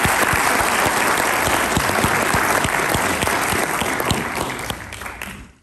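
Audience in a hall applauding, dense steady clapping that tapers off near the end and cuts off.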